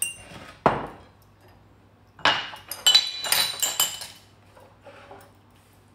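Kitchen utensils and dishes being handled: two knocks in the first second, then a run of clinks with short ringing chinks, metal on crockery or glass, between about two and four seconds in.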